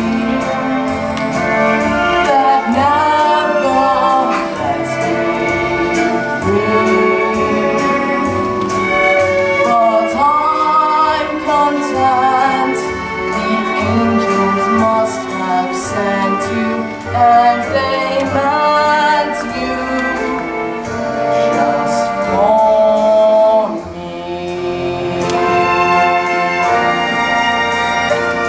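Solo voice singing a slow ballad over orchestral accompaniment; about three-quarters of the way through the voice stops and the accompaniment plays on.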